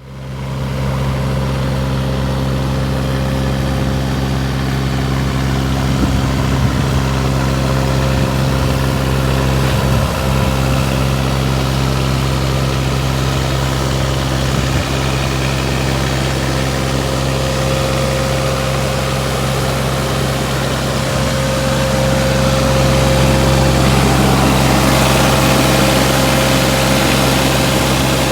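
Volvo EC15E mini excavator's diesel engine idling steadily, with a few brief knocks, and running slightly louder near the end.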